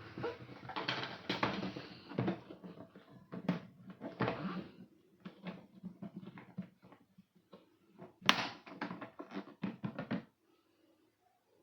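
Handling noise: an irregular run of clicks, knocks and rustles as objects are moved about, with one sharp knock about eight seconds in. The sounds stop near the end.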